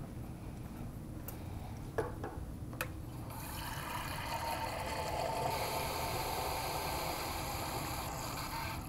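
Two short knocks, then deionized water running from a lab tap's hose into a large beaker, filling it. The running water starts about three seconds in, holds steady, and stops at the very end.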